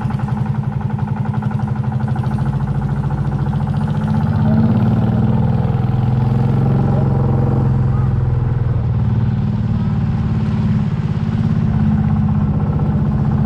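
A small motorboat's engine running steadily underway, its level rising a little about four and a half seconds in.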